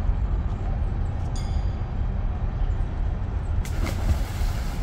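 Steady low wind rumble on the microphone, then about three and a half seconds in a splash as a boy drops from a rope swing into a river.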